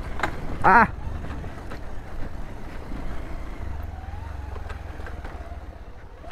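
Motorcycle engine running low and steady while riding a rough dirt trail; the rumble grows a little stronger about four seconds in. A short vocal 'aah' comes just under a second in.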